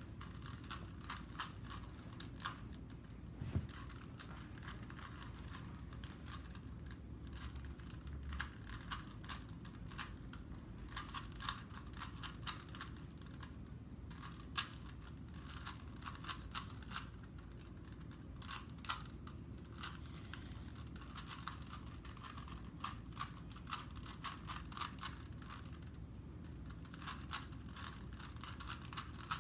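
Plastic clicking and clacking of a stickerless Rubik's Cube being turned rapidly by hand during a speed solve, in quick runs of turns broken by short pauses.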